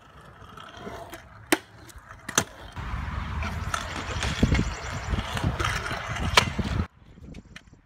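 Freestyle scooter riding on concrete: two sharp clacks, then a loud rolling rumble of wheels with more clacks, cutting off suddenly near the end.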